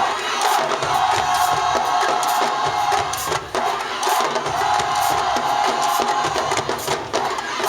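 Marching band drumline playing a cadence of sharp, rapid stick hits over a crowd cheering and shouting.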